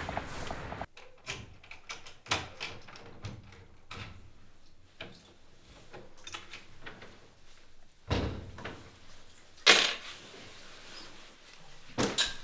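Door sounds: a steady outdoor hum cuts off about a second in, then a handle and latch click at intervals, with a dull thump and a sharp, loud knock of a door shutting a little before the end.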